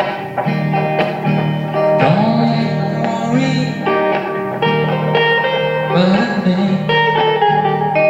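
Acoustic guitar playing the accompaniment of a song between sung lines, with a voice sliding in pitch on wordless sounds a couple of times.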